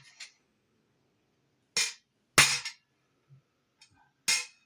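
A hammer striking a steel stamp to punch a design into a metal belt buckle: three sharp, ringing strikes at uneven spacing, with a faint tap just before them.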